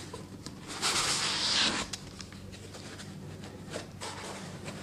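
Packing foam rubbing and scraping against a cardboard box as a foam-packed model engine is lifted out: one hissy rub about a second long, then a few light knocks.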